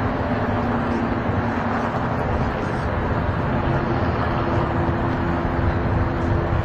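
Steady vehicle and engine noise from the street, an even rumble with a constant low hum running under it.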